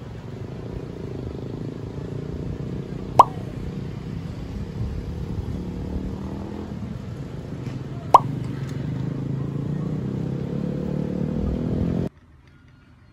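Two short pop sound effects, about five seconds apart, over a steady low drone that slowly rises in pitch and cuts off abruptly near the end.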